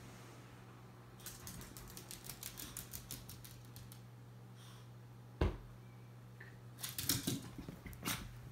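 Miniature pinscher's claws clicking quickly on a tile floor as it walks, with a single loud thump about five seconds in and more scattered clicks and taps near the end.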